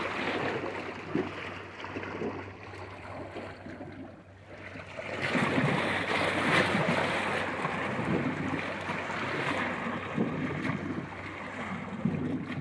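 Sea waves washing on the shore with wind buffeting the microphone, a rushing noise that eases around four seconds in and swells again about a second later.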